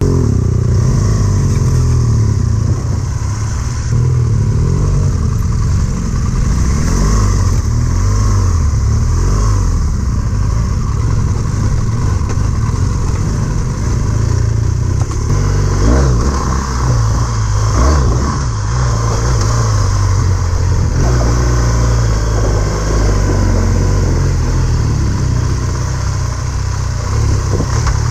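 Dual-sport motorcycle engine running under way on a dirt road, heard from the riding bike, its note rising and falling as the throttle changes.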